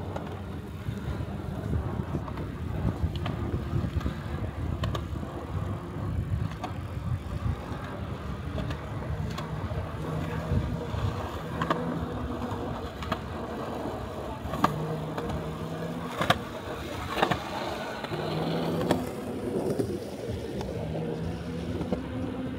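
Riding noise from an e-bike on the move: a steady low rumble of tyres and wind, with short low hums that come and go and a few sharp clicks or knocks, the loudest about two thirds of the way in.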